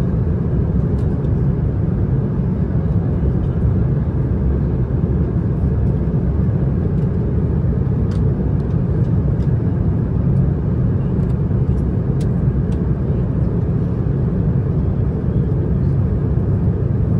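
Steady cabin drone of an Airbus A330-900neo in flight, the engines and airflow making an even low rush. A few faint clicks sound about 8 and 12 seconds in.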